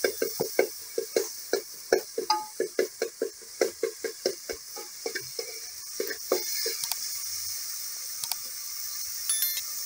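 Metal spoon stirring and scraping onions and tomatoes frying in oil in a metal sufuria, quick strokes about three or four a second over a steady sizzle. The stirring stops about two-thirds of the way through, leaving only the sizzle.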